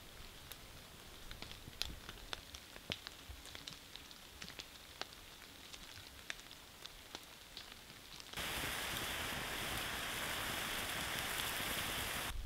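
Rain falling, with many separate drops ticking sharply on a tent or tarp over a faint hiss. About eight seconds in, a much louder, steady hiss cuts in abruptly.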